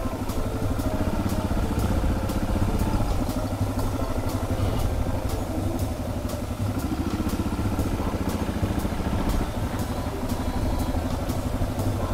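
Suzuki DR650's single-cylinder four-stroke engine running steadily at low revs while the bike creeps along slowly. A light, regular ticking comes about three times a second.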